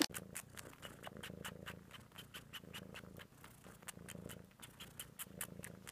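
Domestic cat purring steadily: a low, even rumble with light clicks running through it.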